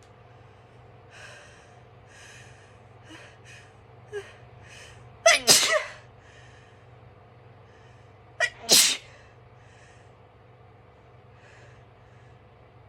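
A person sneezing loudly twice, about five seconds in and again near nine seconds, each sneeze set off by a quick catching breath. A run of short, faint inhales leads up to the first sneeze.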